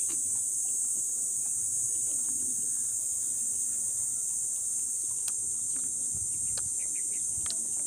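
Steady, high-pitched insect chorus droning without a break. A few faint clicks of someone eating crispy pork by hand come in the second half.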